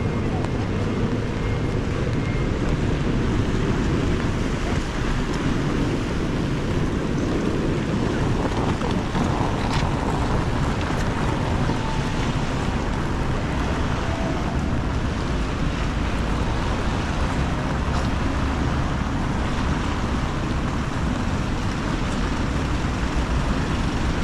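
Rainy city street ambience: a steady hiss of rain and of car tyres on the wet road as vehicles pass, over a strong low rumble.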